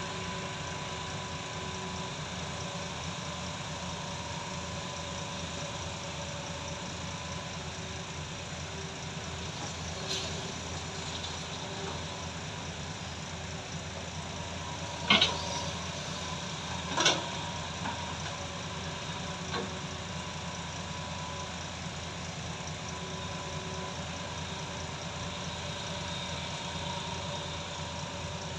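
Hydraulic excavator and dump truck diesel engines running steadily as the excavator works, with two loud clanks about two seconds apart near the middle and a few fainter knocks.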